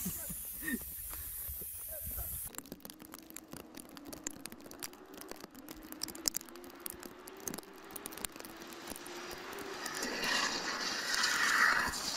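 A car engine accelerating, its note rising slowly and steadily, under a crackle of clicks. Near the end a swelling hiss of rain and water spray from a wet road takes over.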